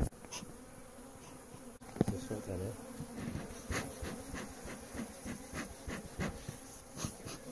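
Honeybees buzzing at a hive entrance: a steady hum from the colony, with single bees flying close past whose buzz wavers in pitch as they come and go.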